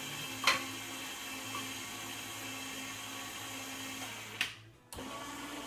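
Juico Uno upright slow juicer's motor running with a steady hum, reversed to clear the last pulp from the screw. A sharp click about half a second in; near the end it clicks and stops for a moment, then runs again.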